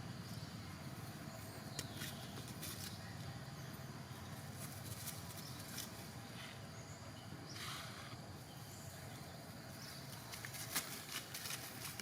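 Outdoor ambience: a steady low hum with scattered light clicks and taps, and a brief rustle a little past halfway.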